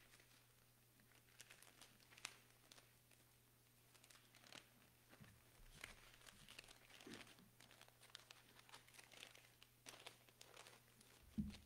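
Faint rustling and crinkling of paper sheets being handled at a lectern microphone, with scattered soft clicks, over a steady low hum.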